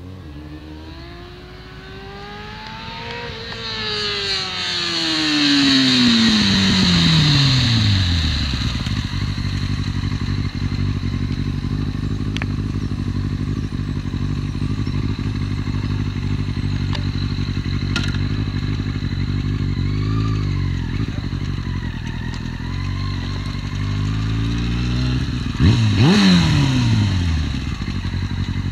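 Yamaha inline-four sport bike engine accelerating in with rising revs, then slowing with a long falling pitch and settling to a steady idle. About 26 seconds in a click is followed by one quick throttle blip, the revs jumping up and dropping back.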